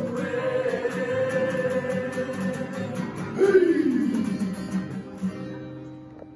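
A group of performers singing a Māori action song (waiata-ā-ringa) to strummed acoustic guitar, holding a long note together. About three and a half seconds in, the voices slide down in pitch as the song ends, and the sound fades out.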